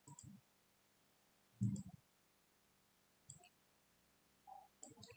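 A handful of computer mouse clicks, scattered and spaced a second or so apart, with one louder click just under two seconds in.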